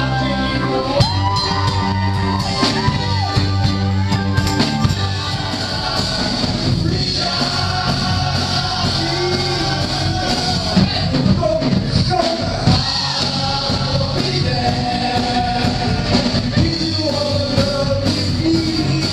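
Live rock band playing, with electric guitars, drums and a singer.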